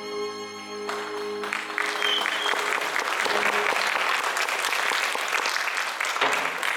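Theatre audience applauding at the end of a musical number. The last held note of the music fades out under the first few seconds of clapping.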